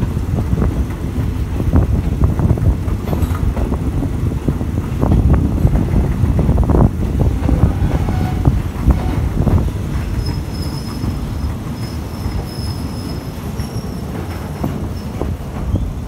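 Passenger train running along the track, heard from aboard a carriage, with a steady rumble and irregular wheel knocks. A thin, high wheel squeal comes in about ten seconds in and lasts a few seconds.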